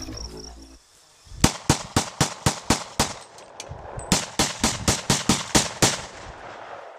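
Two rapid strings of pistol shots, about four a second and around eight shots each, with a pause of about a second between them. A music track ends just before the first shot.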